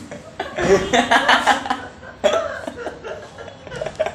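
Two teenage boys laughing uncontrollably, in breathy fits that start and stop.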